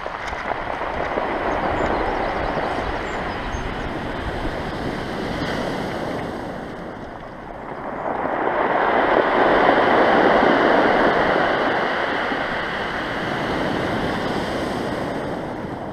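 Sea waves breaking and washing up a pebble beach. The surf dips briefly, then swells to a louder surge about eight seconds in and ebbs away again.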